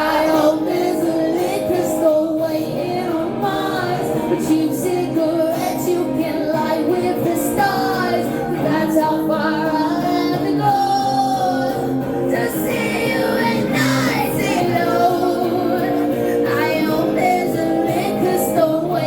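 Live pop song performance: a woman's voice singing over steady instrumental accompaniment.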